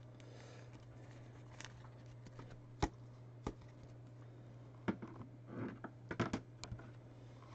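Faint clicks and a brief light rustle of trading cards being handled and flipped through, a few scattered taps with a small cluster in the second half, over a steady low hum.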